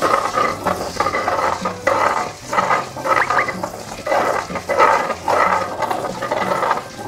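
Dried red peppers and garlic, wet with kelp broth, ground by hand against the ridged inside of an earthenware grinding bowl: repeated scraping strokes, about two a second.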